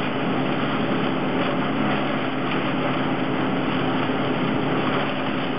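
Engine of tree-service machinery running at a steady speed, an even hum with no revving.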